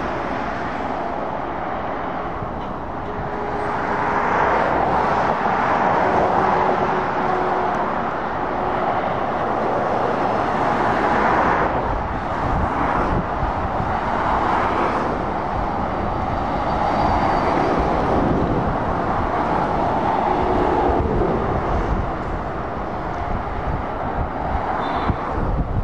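Road traffic of lorries and cars passing on a dual carriageway: a continuous tyre and engine noise that swells and eases as each vehicle goes by.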